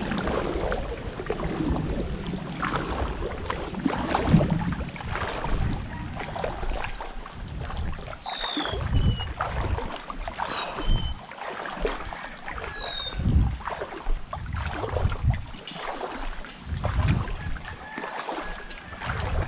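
Water lapping and splashing with wind buffeting the microphone, in irregular surges and low knocks. A few short high chirps come through in the middle.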